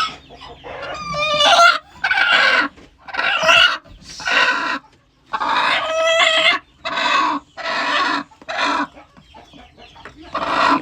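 Hens clucking and squawking in a run of loud, pitched calls, about eight in a row with short gaps between them. The calls come from a hen protesting as she is reached under for her eggs.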